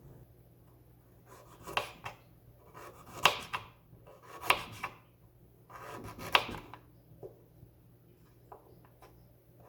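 Knife cutting ginger on a wooden cutting board: four short bursts of quick cutting strokes, a second or so apart, then a few faint taps.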